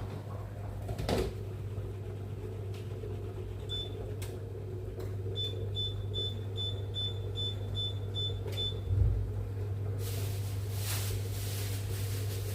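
Electronic beeper of a kitchen appliance: one short high beep, then a run of about ten short, evenly spaced beeps at the same pitch, over a steady low electrical hum. A low thump follows the beeps, and a steady hiss starts near the end.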